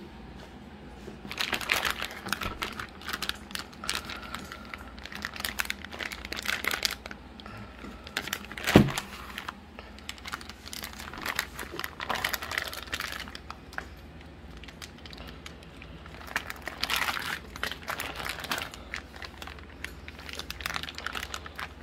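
Plastic zip-top bags of pork belly in cure crinkling in irregular bursts as they are handled and pressed. One sharp knock about nine seconds in.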